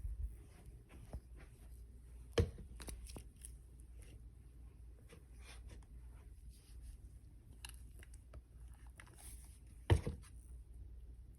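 Scattered faint clicks and crackles of small objects being handled, with two sharper knocks, one about two and a half seconds in and one near the end.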